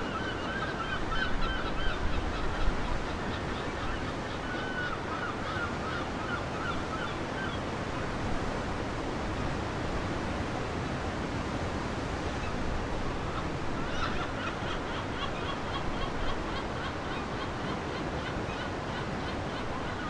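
Surf washing steadily over a rocky shore, with birds calling in quick repeated series, once at the start and again from about fourteen seconds in.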